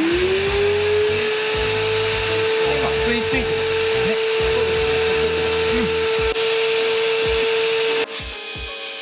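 Dust extractor motor starting up, its whine rising in pitch over the first half second and then running steadily with a rushing hiss of air drawn through the hose and suction pad. It becomes quieter about a second before the end.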